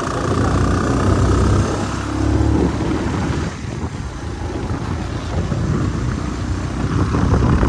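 Motorcycle running steadily while being ridden along a road, its engine low and continuous under a rushing noise.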